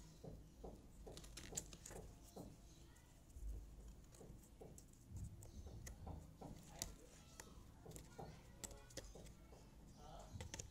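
Faint, irregular taps and clicks of jigsaw puzzle pieces being picked up, slid and pressed into place on the puzzle.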